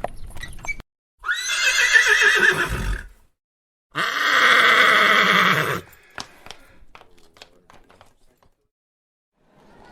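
Horse whinnying twice: two long, quavering neighs of about two seconds each, separated by a short silence, followed by a few faint clicks.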